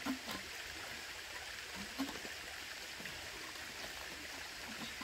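Shallow creek water running steadily over rocks, with a few short gurgles as a plastic water bottle is held under the surface and fills.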